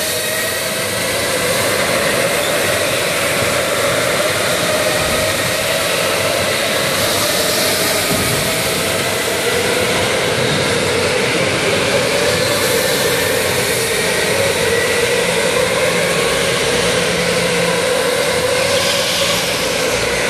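Electric go-karts racing round an indoor track: a steady whine of their motors over the noise of the hall, its pitch drifting up and down as the karts speed up and slow.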